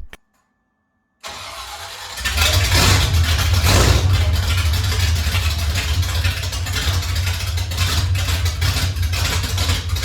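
Ford 390 FE big-block V8 cranking on the starter for about a second, then catching about two seconds in and running loudly and steadily, with a brief rise soon after it fires. The engine is freshly rebuilt and its ignition timing is only roughly set.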